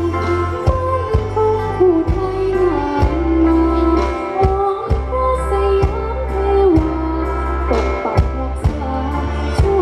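Luk thung band music with a singer's melody line over strong bass and drum hits.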